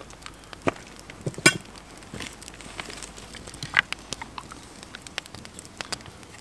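Open wood fire crackling, with scattered sharp snaps and pops, the loudest about a second and a half in. Footsteps on grass early on as someone walks up to the fire.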